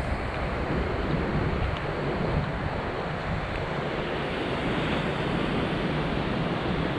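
Steady wash of ocean surf with wind gusting on the microphone, the wind rumbling low and uneven.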